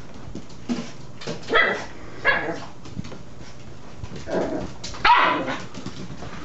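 Small dog barking at its own reflection in a mirror: about five short barks, spread out, the loudest about five seconds in.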